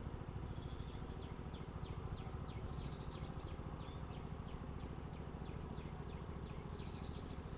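A rapid series of short, falling chirps, about three a second, from a small calling animal, over a steady low rumble.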